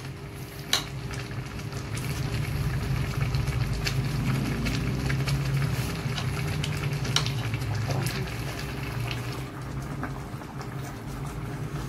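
Large aluminium stockpot of pork stew at a full boil, bubbling steadily while a ladle stirs it, with a few light clicks of the ladle against the pot and a steady low hum underneath.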